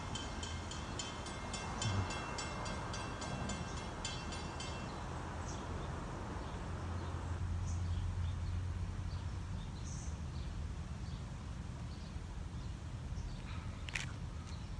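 Railroad grade-crossing bell ringing rapidly, about three strokes a second, then stopping about five seconds in. After it, a low steady rumble, with one sharp click near the end.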